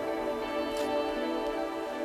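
Background music: sustained, calm instrumental tones, with a soft high swish on the beat about every second and a half.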